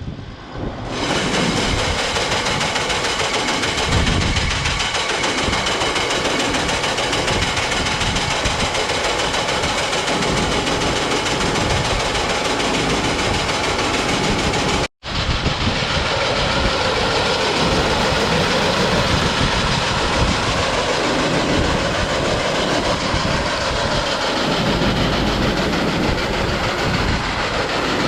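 Hydraulically driven auger on an air seeder running, carrying seed wheat up out of a trailer into the seed tank: a loud, steady noise of turning auger and flowing grain, with a tractor engine under it. It starts about a second in and drops out for an instant about halfway through.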